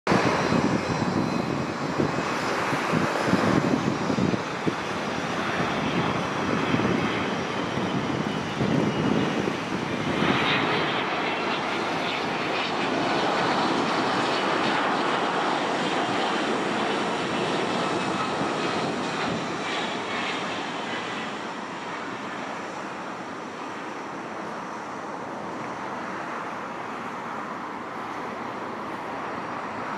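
Jet engine noise from a Boeing 767-300 airliner on final approach and landing: the steady rush of its twin turbofans with a faint high whine, loudest in the first half and then gradually fading as the airliner moves away down the runway.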